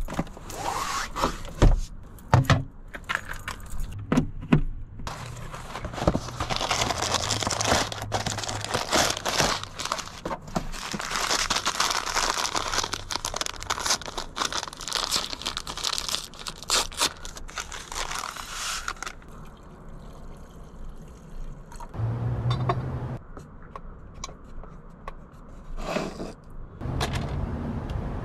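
Rummaging and handling in a car: knocks and clicks of things being moved, then a long stretch of paper packaging crinkling and rustling. Two short low rumbles come in the last third.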